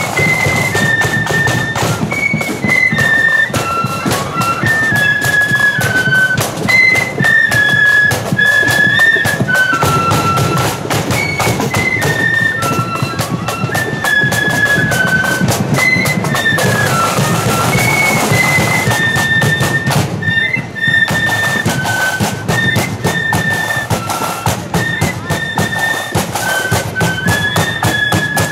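Marching flute band playing a tune in unison on flutes, over a steady beat of drums including a bass drum.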